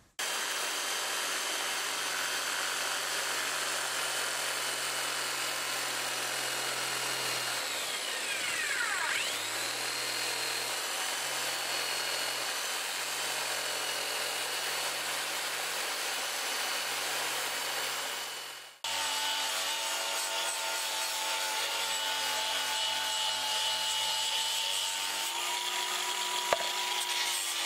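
Corded jigsaw cutting a sheet of UHMW plastic, its motor running steadily with a high whine and briefly slowing under load and picking up again about a third of the way in. The sound then switches abruptly to an angle grinder with a sanding disc running steadily as it bevels the plastic's edge, with one small click near the end.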